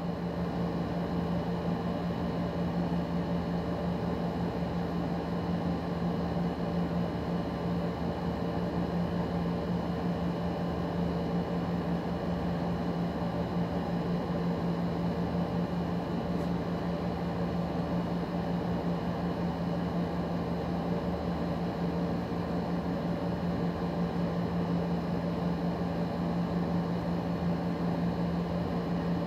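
A small machine running with a steady low hum that does not change.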